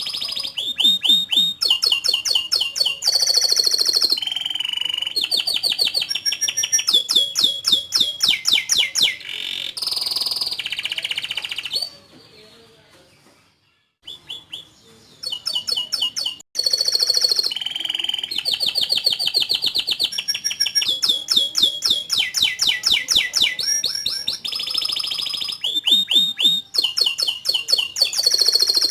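Domestic canary singing a long, varied song of fast trills and rapidly repeated chirps, changing from one phrase to the next every second or two, with a pause of about two seconds near the middle.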